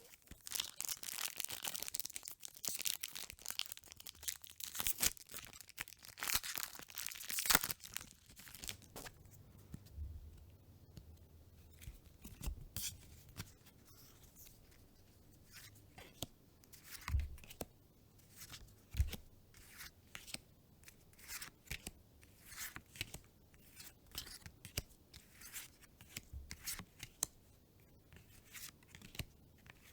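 Foil booster pack of trading cards being torn open, a dense crinkling and tearing for about the first eight seconds. Then the cards are handled one by one, with short separate snaps about once or twice a second.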